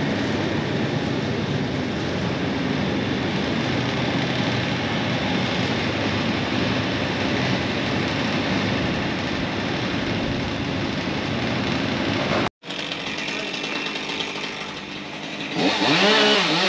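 An engine running steadily, cut off abruptly about twelve seconds in. Near the end a chainsaw revs up and down several times.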